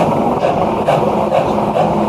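Steam locomotive exhaust chuffing in a steady rhythm, about two beats a second, as the engine works its train.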